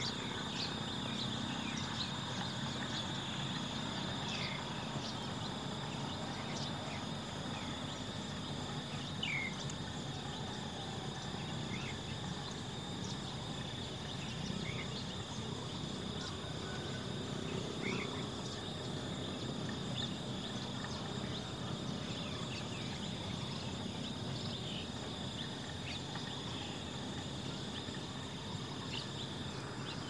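Outdoor ambience dominated by a steady, high insect drone, with scattered short, faint chirps.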